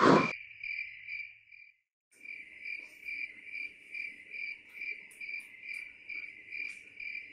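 Cricket chirping steadily on one high pitch, about two to three chirps a second, cutting out briefly about two seconds in and then resuming. A few faint clicks sit under it.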